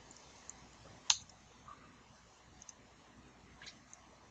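A few separate computer keyboard and mouse clicks, the loudest about a second in, the rest fainter and spaced about a second apart.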